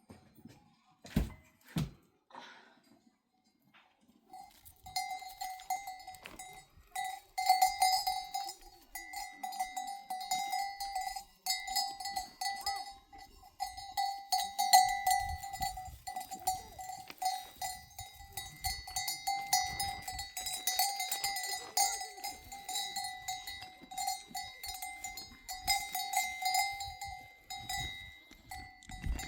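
Metal bells jangling and ringing continuously with a steady tone and a rattle, after two sharp knocks about a second in.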